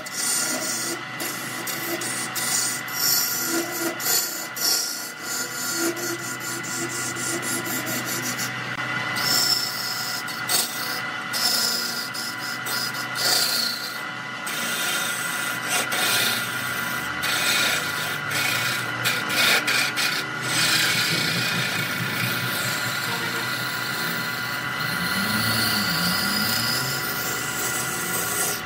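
Wood lathe running with a steady whine while a turning gouge cuts a spinning wooden vase blank, giving a continuous rough scraping as shavings come off, with irregular surges through the cut.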